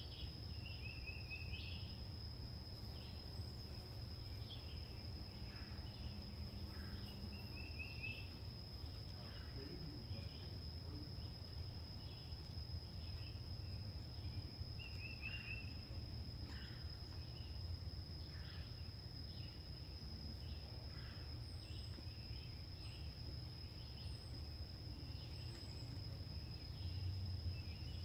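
Summer outdoor ambience: a steady high-pitched insect trill, with a few short bird trills and scattered faint chirps over a low background rumble.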